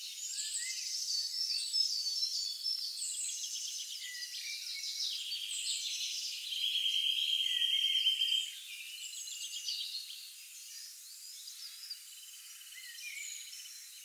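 Several songbirds singing at once in a forest, with overlapping whistled phrases and fast trills. A steady high trill holds for about a second and a half near the middle, and the singing grows quieter in the second half.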